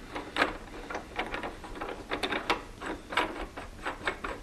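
Irregular light metallic clicks and ticks, some in quick clusters, from a steel ER32 collet nut with a drill bit in its collet being handled and started onto the threads of the collet chuck.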